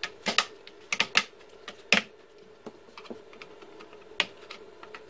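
Plastic cable drag chain links being pried open one after another: a run of sharp, irregularly spaced plastic clicks and snaps, the loudest about two seconds in.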